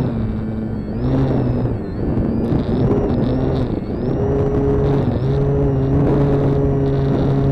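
Durafly Tundra RC plane's electric motor and propeller running in flight, the pitch dropping and rising again several times, with wind rushing over the onboard microphone.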